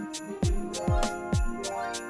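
Background music with a steady beat: a low drum hit about twice a second, sharp percussion ticks between, and sustained melodic notes.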